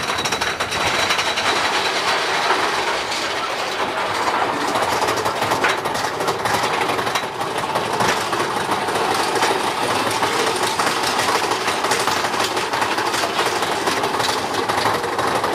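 Mine-train roller coaster cars running along the track, heard from on board: a steady loud clatter of wheels on the rails, full of small rapid clicks and rattles.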